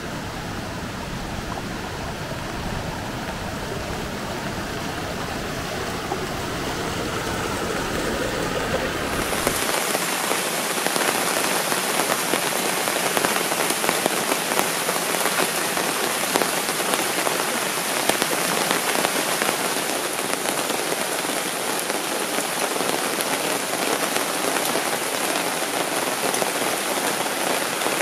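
Steady, dense pattering water noise with no tones in it. About ten seconds in it grows denser and brighter, and a low rumble underneath drops away.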